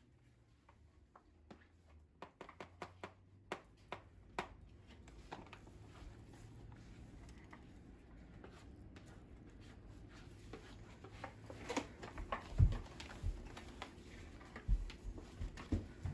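Hands handling a food pouch and utensils: a run of sharp clicks and crinkles in the first few seconds, then steady rustling, with a few louder low thumps near the end.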